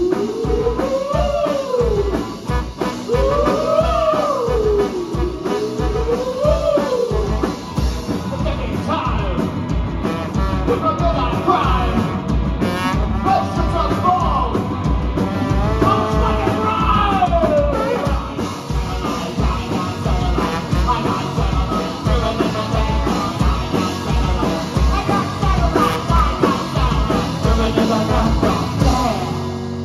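Live rock band playing with trombone, electric guitars and drums over a steady driving beat; a pitch swoops up and down again and again over the first several seconds.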